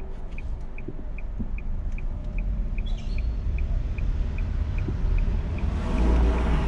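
A high electronic beep repeating steadily, about two and a half times a second, over the low rumble of a car's engine and road noise. The rumble grows louder near the end as the car pulls away.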